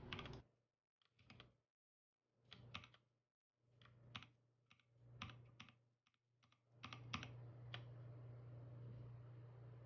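Faint typing on a Drop SHIFT mechanical keyboard: short runs of key clicks with brief pauses between them.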